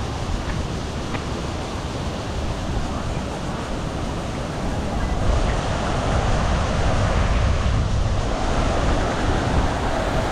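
Steady rushing of a waterfall and its churning pool, growing louder about halfway through.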